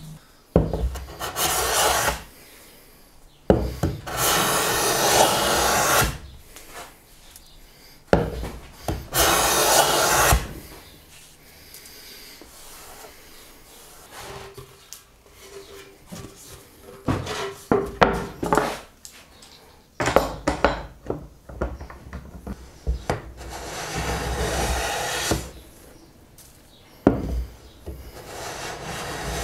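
Hand bench plane cutting shavings from a red oak board: several long, scraping strokes of about two seconds each, with knocks between them as the plane is set down and lifted.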